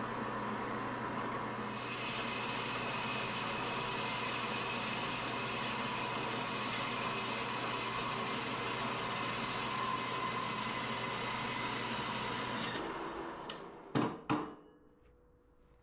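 Horizontal metal-cutting bandsaw cutting through square steel tubing: a steady hiss from the blade over the motor hum, starting about two seconds in. The saw runs down at about 13 seconds and is followed by two loud knocks.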